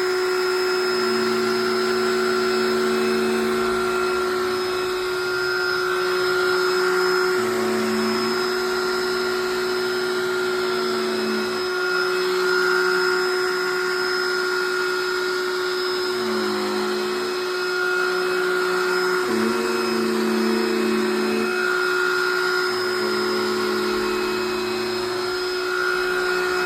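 Black+Decker Dustbuster cordless handheld vacuum running continuously, its tone shifting every few seconds.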